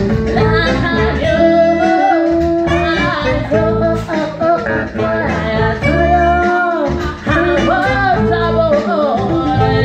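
Live band music: a man singing into a microphone over sustained instrumental accompaniment, the voice holding and bending long notes.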